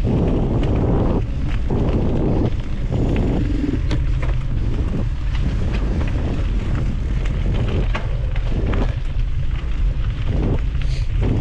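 Wind buffeting the microphone of a mountain bike riding fast along a dirt forest trail. A steady rumble swells and dips, and the bike rattles and ticks over the bumps.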